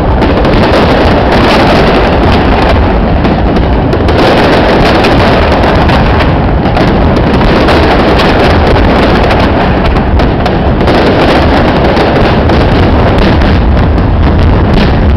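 Fireworks finale barrage: a loud, unbroken wash of rapid bursts and crackle, with wind rumbling on the microphone.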